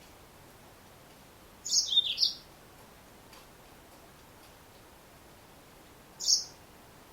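Female yellow-fronted canary (Mozambique singing finch) calling: a quick cluster of three or four high chirps about two seconds in, then a single chirp near the end.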